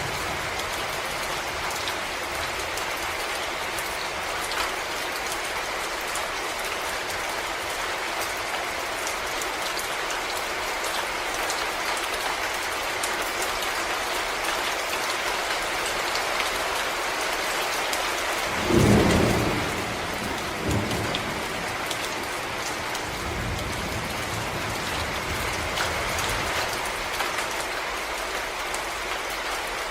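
Steady rain falling on forest leaves and ground, with scattered individual drops ticking. About two-thirds of the way through comes a brief, louder low rumble, followed a few seconds later by a fainter low rumble.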